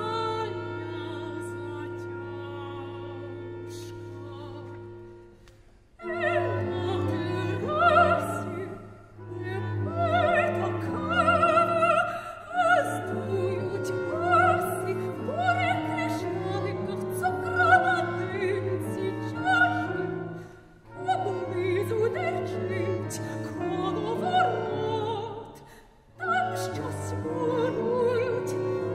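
Contemporary classical cantata for soprano and chamber ensemble (violin, cello, piano, percussion). A held chord fades away over the first few seconds; after a brief pause the soprano and instruments come back in, with several short breaks between phrases.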